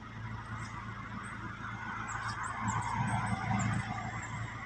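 A road vehicle going past, its noise swelling about halfway through and easing off, over a steady low engine hum. A few faint high chirps sound in the middle.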